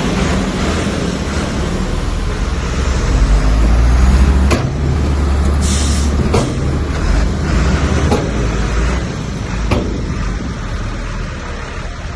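Komatsu bulldozer's diesel engine running hard with a deep, steady drone, broken by a few sharp metallic clanks. The sound gradually fades over the last couple of seconds.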